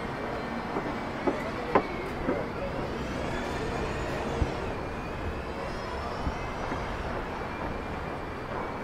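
Street traffic: a steady rumble of road vehicles, with a faint whine that rises and falls about two to five seconds in as a vehicle passes.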